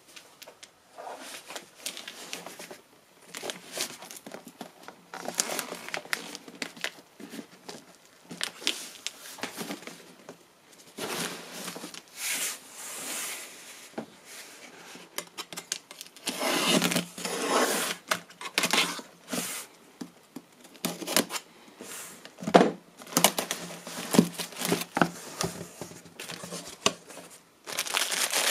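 A cardboard monitor box being unpacked by hand: irregular rustling, scraping and tearing of tape and cardboard flaps, with scattered knocks and clicks, and plastic wrapping crinkling around foam-packed parts near the end.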